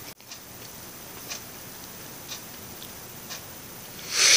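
Faint, regular ticking about once a second over a steady low hiss, then a loud rushing noise starting about four seconds in.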